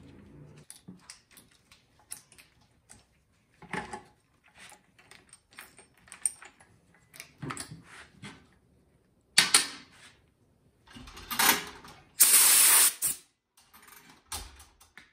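Metal clicks, clatter and scraping from hand tools and chainsaw parts as the bar and chain are taken off a Husqvarna 460 chainsaw. Near the end comes a loud, steady hiss lasting about a second.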